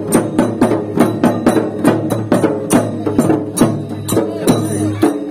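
Double-headed barrel drums struck with sticks, with small brass hand cymbals, playing a fast, steady folk processional rhythm of about four strokes a second.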